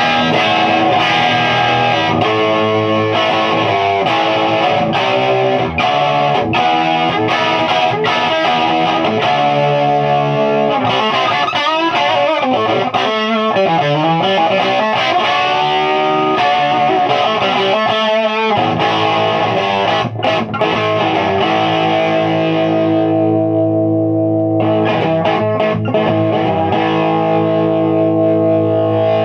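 Electric guitar on its bridge P-90 pickup, played through a Mojotone 5E3 tweed Deluxe clone valve amp turned all the way up, heavily overdriven and crunchy with no negative feedback. Chords and lead lines with wavering string bends about halfway through, ending on a long held chord that is struck again near the end.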